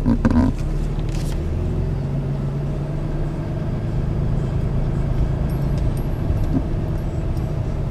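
A 2014 Ram's 6.7-litre Cummins turbo-diesel inline-six, heard from inside the cab, running steadily at low revs as the truck pulls away and rolls slowly.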